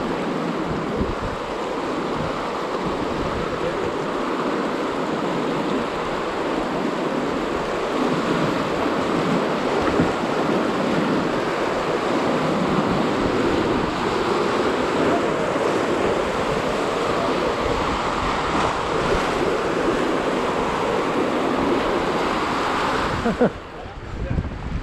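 Colorado River water rushing steadily; the sound cuts off abruptly about a second and a half before the end.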